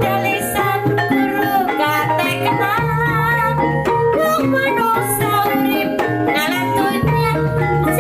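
Music with many short pitched notes over a low bass pattern that drops out and returns, and a wavering sung or melodic line above it.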